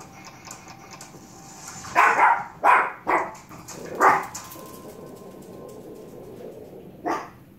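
A dog barking: several short barks in quick succession, then a single bark near the end.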